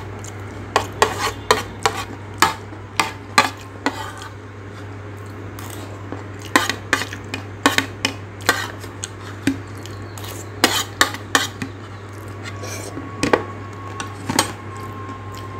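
Metal spoon clinking and scraping against a ceramic plate as the last of the food is gathered up, in irregular sharp taps one to three times a second, over a steady low hum.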